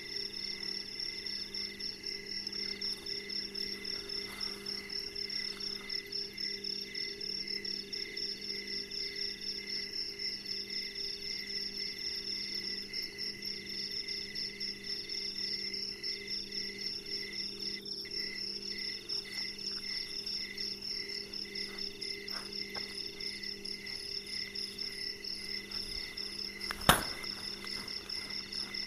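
Night chorus of crickets and other insects, steady pulsing trills at several pitches. A single sharp knock sounds near the end.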